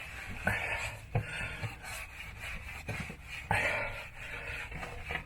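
Repeated rasping, rubbing strokes against the bore of a cast-iron engine cylinder liner, with a few sharp knocks between them, about one to two seconds apart.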